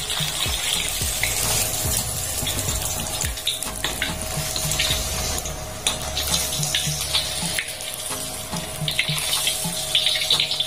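Whole fish deep-frying in hot oil in a wok, with a steady sizzle and a dense crackle.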